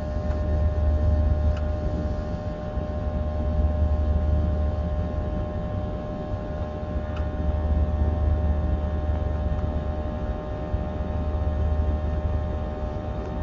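Steady in-flight cabin drone of a Boeing 737-700 airliner: a strong low rumble with several steady whining tones from its CFM56 turbofan engines, heard from inside the cabin.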